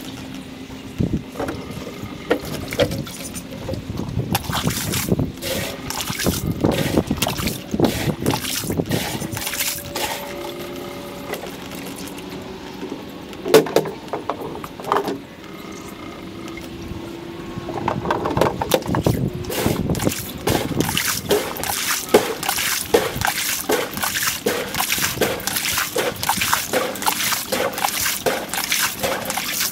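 Outdoor sound played back at four times speed: water trickling and sloshing under a stream of quick clicks and short chirps, turning into a regular pulsing of about two beats a second in the last third.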